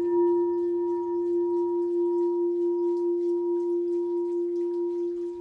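Singing bowl ringing out after a single strike: one steady low tone with fainter, higher overtones, wavering gently as it slowly fades.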